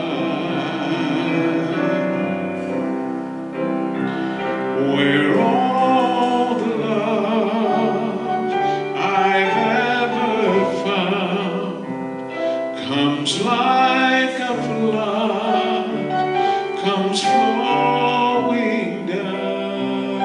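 Male and female voices singing together with keyboard accompaniment.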